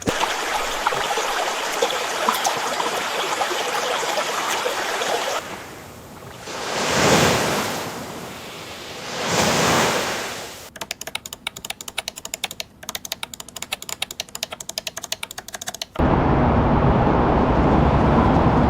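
A run of short AI-generated (MMAudio) sound-effect clips, cut one after another. First comes a dense crackling hiss, then two slow rising-and-falling swells of rushing noise, then a rapid irregular patter of sharp clicks. Near the end a steady low hum takes over.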